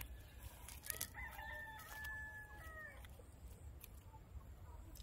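A rooster crowing once, faint: a held call of almost two seconds starting about a second in, dropping in pitch at the end.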